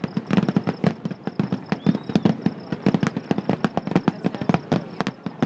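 Fireworks crackling: a dense, irregular run of sharp pops and bangs, several a second, with no pause.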